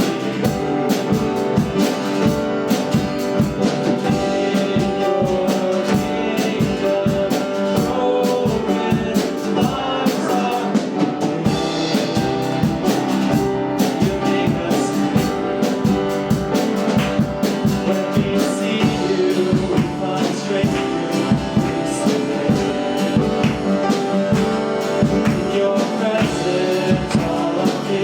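Church worship band music with drum kit and guitar, steady beat, with singing.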